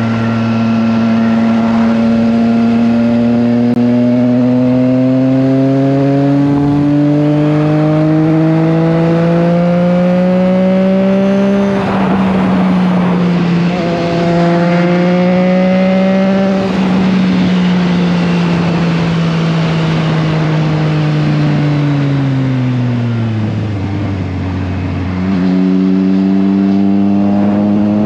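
Triumph Trident 660's three-cylinder engine under way on the road. Its pitch climbs steadily for about ten seconds and dips briefly in the middle, then holds. About two-thirds of the way through it falls away as the bike slows, then picks up again near the end, over a steady rush of noise.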